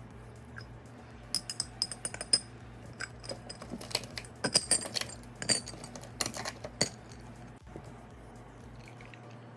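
A metal teaspoon clinking against a glass, a quick irregular run of light chinks as coffee concentrate is measured and stirred into water; it starts about a second in and stops about seven seconds in.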